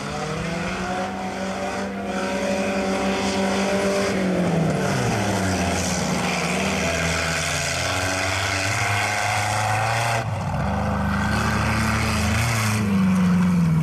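Mud drag racing vehicle's engine at high revs. Its pitch holds high, falls away about four to six seconds in, then climbs again after about ten seconds.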